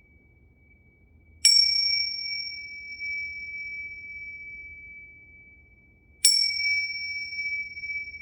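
Tingsha cymbals struck together twice, about five seconds apart, each strike a bright ping that rings on as a steady high tone and slowly fades.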